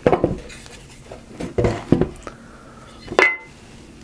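Metal clanks and knocks of a Type 81 rifle being handled as its dust cover is worked onto the receiver during reassembly: several sharp knocks, the loudest about three seconds in with a brief metallic ring.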